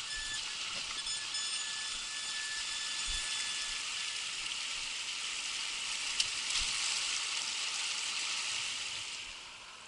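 Mountain stream running over stones: a steady hiss of rushing water. A faint high steady whine sits over it for the first few seconds, and there is a single click about six seconds in.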